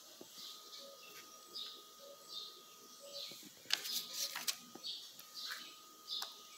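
Quiet handling sounds as sliced ham is picked up and laid by hand over breaded steaks in a metal baking pan: soft rustles and light clicks, busiest about four seconds in. Faint high chirps repeat throughout in the background.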